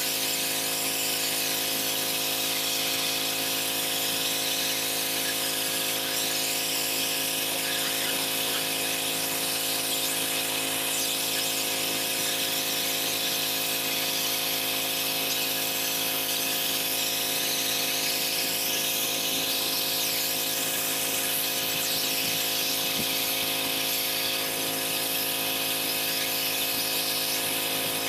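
Pressure washer running steadily: an even mechanical hum under the continuous hiss of high-pressure water spraying onto the driveway.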